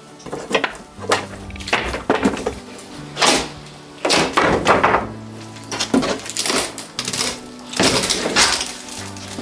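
Old wooden wall boards being pried and broken off with a long bar: repeated cracking, clattering and thudding of wood, loudest in the second half, over background music.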